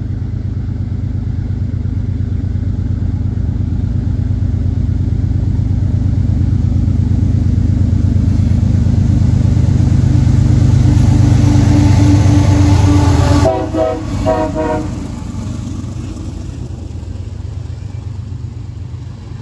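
CSX freight train approaching on the rails: a low diesel locomotive rumble builds steadily and peaks about 13 seconds in, together with a horn-like tone and a short horn chord as the locomotives pass. The rumble then drops off sharply, leaving the lighter steady rolling of freight cars going by.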